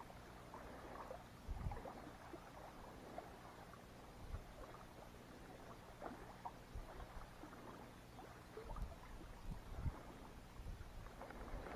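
Quiet outdoor background with faint, scattered low thumps every second or two and small soft clicks and rustles.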